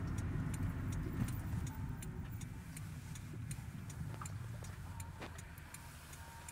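Car's turn-signal indicator ticking steadily over the low rumble of the engine and tyres inside the cabin. The rumble fades as the car slows to a stop.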